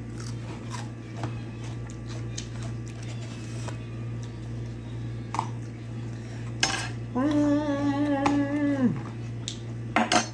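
Eating by hand at a plate: scattered crunches of raw cucumber being bitten and light clicks of dishes, over a steady low hum. About two-thirds of the way through, a woman hums a closed-mouth 'mmm' for nearly two seconds.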